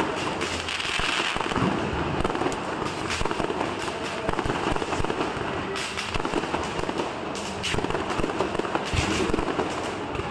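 Multi-shot firework cakes firing continuously, one shot after another, with aerial bursts making a dense run of pops and crackles.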